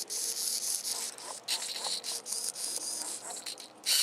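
RC plane throttle servo driven back and forth in a series of short starts and stops, making a raspy, high-pitched grinding buzz much like the elevator servo's; the owner suspects this servo may be bad.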